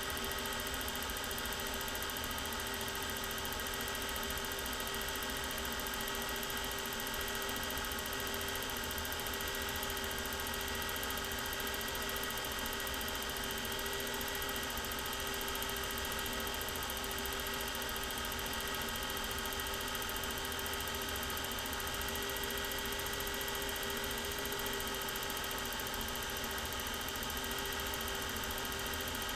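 Steady hum and hiss with several held tones, unchanging throughout: machine or electrical noise, not sound from the filmed scene.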